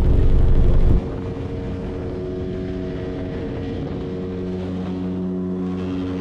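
Motorboat engine running fast with rushing wind and water, dropping abruptly about a second in to a quieter, steady hum as the boat comes off the throttle.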